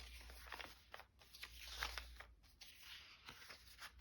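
Near silence with faint, scattered rustles and light taps: paper and craft materials being handled and sorted.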